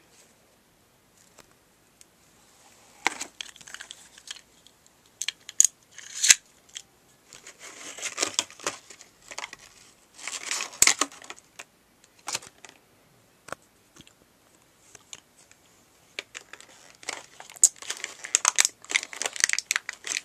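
Plastic blister packaging crinkling and tearing in the hands, in short irregular bursts with scattered clicks, as a small toy part is worked out of its pack.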